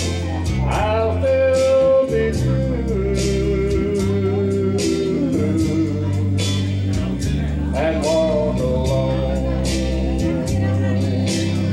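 A man singing into a microphone over an accompaniment with guitar and a steady drum beat, holding two long notes that bend up into pitch.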